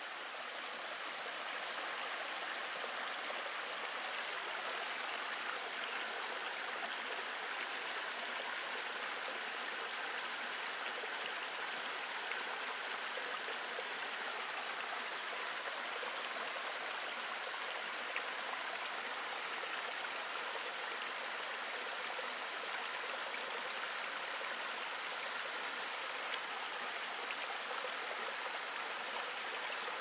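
Shallow stream running low, trickling and splashing over moss-covered limestone tufa terraces (sinter steps) in a steady, even water sound.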